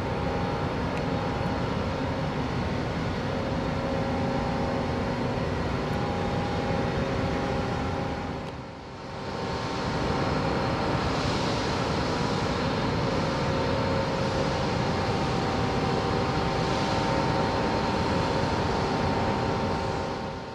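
Steady drone of ship engines, with a faint hum of several steady tones under a broad rush of noise. It dips briefly about nine seconds in.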